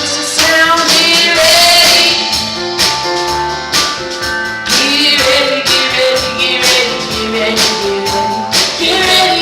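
A band playing a song with singing over instruments and regular percussive hits.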